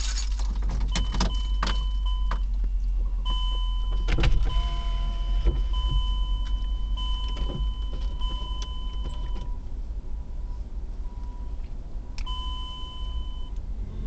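Low steady rumble inside a car cabin, with a few clicks and rattles in the first seconds, one more about four seconds in, and a thin, steady high beep that switches on and off several times.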